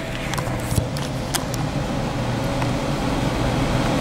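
Steady, fan-like mechanical hum with a few light clicks in the first second and a half.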